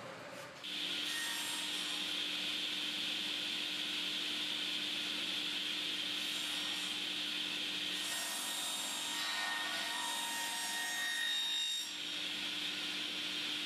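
Sliding table saw running with a steady whine while its circular blade cuts through an old wooden board; the tone of the cut shifts partway through and eases slightly near the end.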